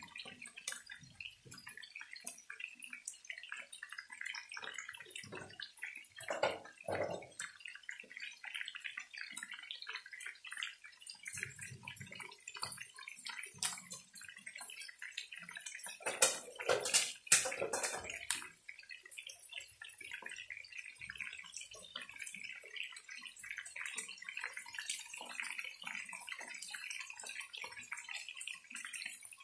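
Chicken pieces sizzling and crackling as they fry in oil in a pan. There is a louder spell of popping a little past halfway.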